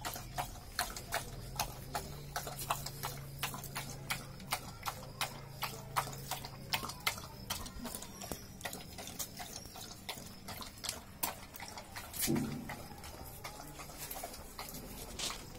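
Kanni dog and her puppies lapping milk from a metal bowl: a steady run of wet clicking laps, about two to three a second. A low steady hum sits under the first half, and there is one short low sound about twelve seconds in.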